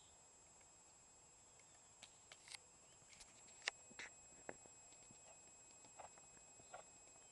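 Faint hoofbeats of a Hanoverian filly trotting under saddle on arena sand: a scatter of soft, irregular clicks that starts about two seconds in, the loudest near the middle.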